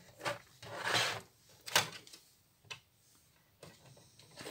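Plastic watercolour palette box handled and slid on a cutting mat: a few rubs and scrapes, a sharp plastic click about two seconds in, a smaller tick after it, and rustling near the end.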